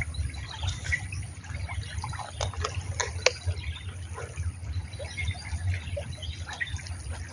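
Shallow stream water trickling and splashing close by, with scattered small clicks and a steady low rumble underneath.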